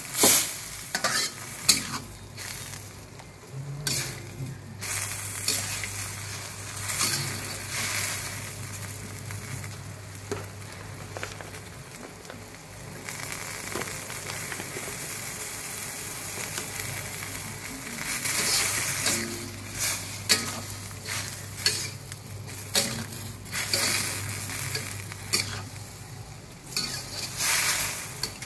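Stir-frying bean sprouts, tofu and quail eggs in a stainless steel wok: a steady sizzle, with the metal spatula scraping and clinking against the wok. The stirring eases off for a few seconds in the middle, leaving mostly the sizzle, then picks up again.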